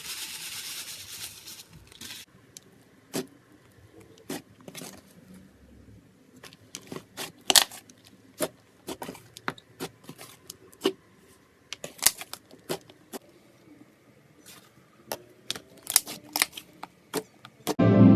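Slime-filled stress ball being cut and handled: a short hiss at the start, then a string of irregular sharp clicks and crackles, a few much louder than the rest.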